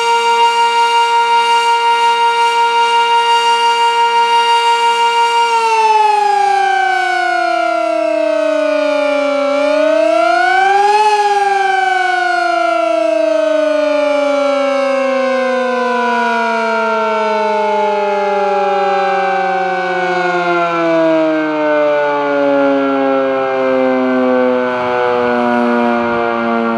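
Village civil defense siren at full pitch with a steady tone that wavers slightly in loudness. About five seconds in it begins to wind down, picks up briefly around ten seconds, then winds slowly down with its pitch falling.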